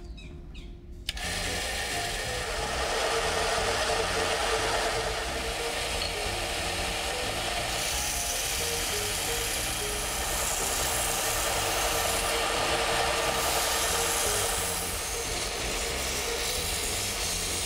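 Narrow vertical belt sander shaping a hickory hammer handle. The sound starts suddenly about a second in, then runs on as a steady hiss of abrasive on wood with a faint steady tone underneath.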